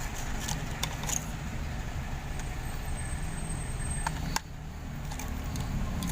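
Light clicks and taps of hands and a tool working on an electric kettle's plastic switch base, over a steady low background rumble.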